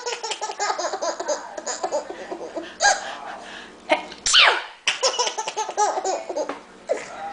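Baby laughing in quick repeated bursts, with a woman's loud fake sneeze, a falling 'achoo', about four seconds in, after which the baby laughs again.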